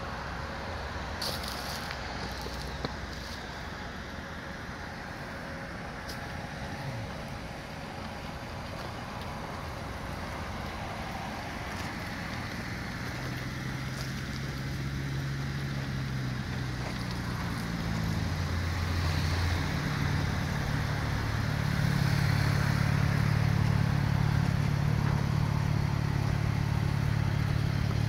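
Steady motor-vehicle noise. A low engine drone comes in about halfway through and grows louder toward the end.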